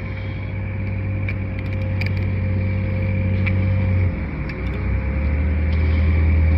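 Truck engine running with a steady low hum that drops in pitch about four seconds in, growing gradually louder.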